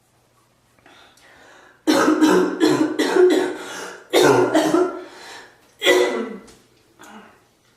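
A person in a coughing fit: a faint sound about a second in, then a long run of rapid coughs, two shorter runs, and one last small cough near the end.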